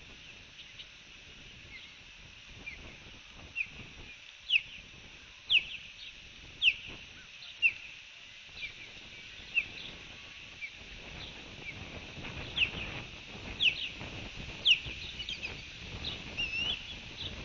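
Osprey calling: a series of short, sharp, high whistled chirps at about one a second, loudest in two runs.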